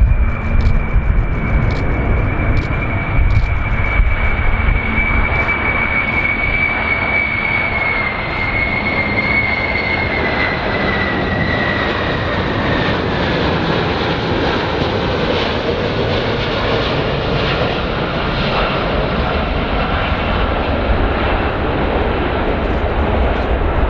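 Large aeroplane's engines running loud as it passes, a deep rumble under a high whine that slowly falls in pitch through the middle of the pass.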